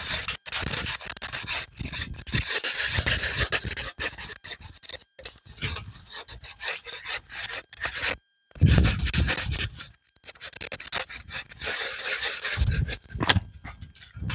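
Dry cut branches and brush rustling and scraping as they are dragged and shifted over rocky ground, in irregular stretches with short pauses.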